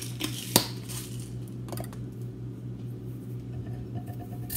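A few light clicks and taps as kitchen items are handled, with one sharper knock about half a second in, over a steady low hum.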